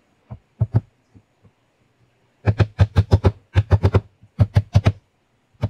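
A hammer striking a wooden box trap by its door: a few light knocks, then from about two and a half seconds in, runs of three to five quick hard taps, about six a second.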